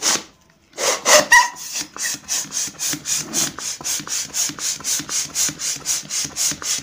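Handheld balloon pump worked quickly, about three strokes a second, each stroke a short rush of air, inflating a latex balloon. A brief squeak of rubbing latex comes about a second in.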